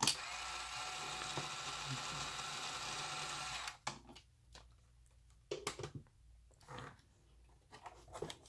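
Small electric motor of a Carrera Digital Ford GT slot car whirring steadily while the car is held on powered track, cutting off suddenly a little under four seconds in. Then a few light plastic clicks and knocks from handling the cars.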